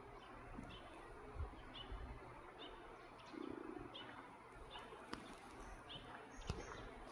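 Great spotted woodpecker calling: a string of short, sharp high notes repeated about every half second.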